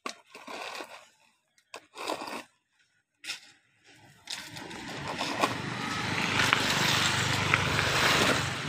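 A few short strokes of a metal trowel scraping gravelly dirt. Then, about four seconds in, a small engine starts to be heard and grows steadily louder.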